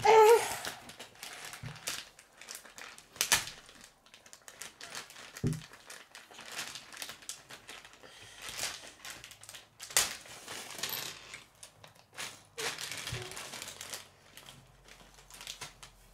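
Thin plastic parts bag crinkling and rustling in uneven bursts as it is worked open by hand, with scattered sharp clicks of small plastic building pieces.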